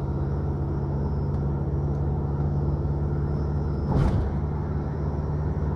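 Car driving, heard from inside the cabin: a steady low hum of engine and tyre noise, with a single sharp thump about four seconds in.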